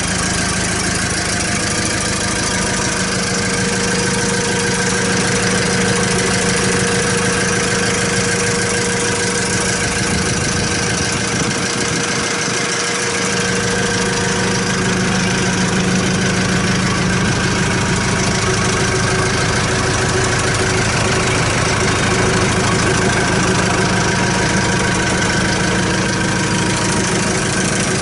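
Kubota M108S tractor's diesel engine idling steadily, heard close up at the open engine bay.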